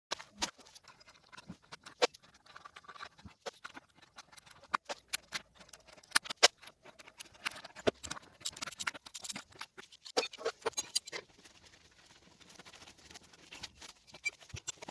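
Irregular run of sharp clicks and light clinks from small hard parts or hand tools being handled, thickest in the middle stretch and thinning out after about 11 seconds.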